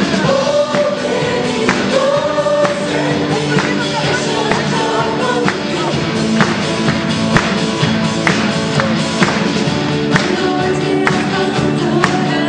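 A choir singing live with a band, drums keeping a steady beat under the voices.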